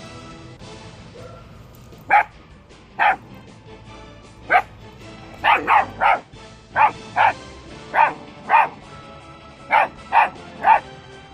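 Belgian Malinois puppy barking at a parked lawnmower: about a dozen short, sharp barks starting about two seconds in, some in quick doubles and triples. The puppy is wary of the machine.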